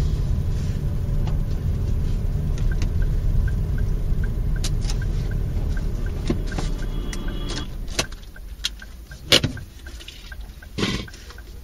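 Car cabin noise from a dashcam car: steady road and engine rumble while driving, with a fast, even ticking for a few seconds in the middle. About eight seconds in the rumble drops off as the car comes to a stop, and a few sharp clicks follow, the loudest about a second later.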